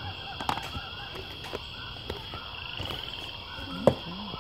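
A steady background chorus of small calling animals, with repeated short calls and a high steady ringing, under light handling clicks. A sharp knock about four seconds in, the loudest sound, comes as a cardboard box is moved by hand.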